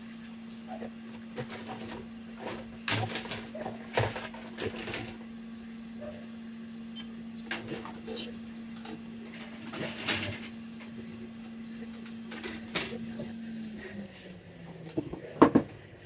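Steady low hum of a small motor on the electronics repair bench, which slows and stops about fourteen seconds in. Scattered light clicks and taps of tools on the workbench sound over it, with a louder pair of knocks near the end.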